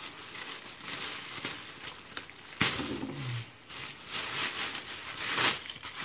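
Plastic wrapping crinkling and rustling as a handbag is pulled out of its plastic bag, with louder crackles about two and a half and five and a half seconds in.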